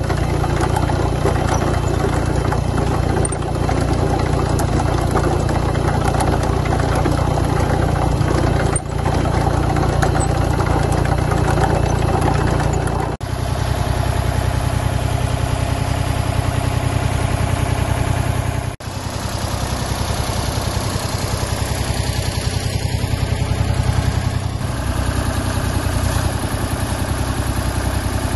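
Ditch Witch RT40 trencher's diesel engine running steadily, with two short dips about 13 and 19 seconds in.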